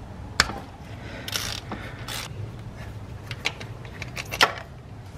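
Ratchet wrench clicking in short runs as the 14 mm bolt of a timing-belt idler pulley is backed out, with sharp metal clicks and clinks as the pulley and bolt come off.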